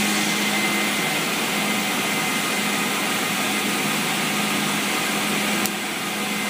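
Steady whirring machine noise with a constant low hum and a faint high whine. A sharp click comes about five and a half seconds in, after which the noise is slightly quieter.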